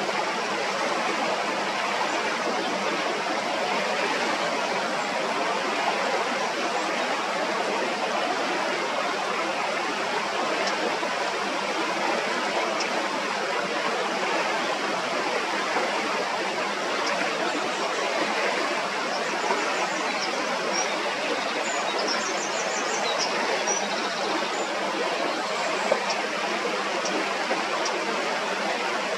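Shallow, clear stream running steadily over stones, with a few faint high chirps about two-thirds of the way through.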